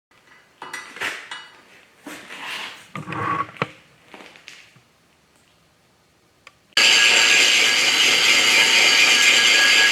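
Steel parts clanking and knocking as they are handled and set in place, then, after a short pause and a click, about three seconds of loud, steady arc-welding crackle that starts and stops abruptly as a bolt is welded on.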